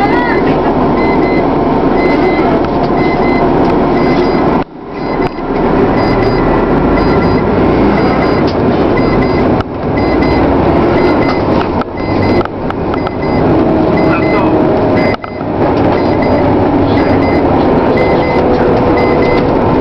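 Loud, steady road and engine noise of a moving vehicle, heard from inside it. The noise dips out briefly a few times, most deeply about five seconds in.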